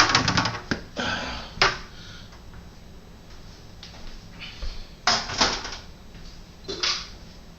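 Plastic refrigerator freezer panel parts rattling and knocking as they are pulled out and handled: a quick clatter of clicks at the start, two more knocks shortly after, then another burst of rattling about five seconds in and a single knock near the end.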